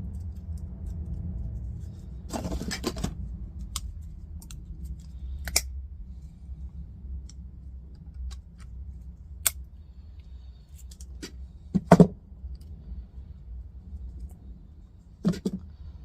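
A small metal hinge of aluminium and stainless steel being taken apart by hand: scattered clicks and short scrapes of metal parts, with one louder knock about twelve seconds in, over a steady low hum.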